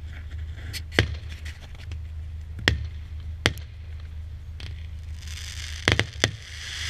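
A consumer fireworks battery (cake) firing shots into the sky, with sharp bangs about a second or so apart. About five seconds in a crackling hiss starts, and a quick run of three bangs follows near the end.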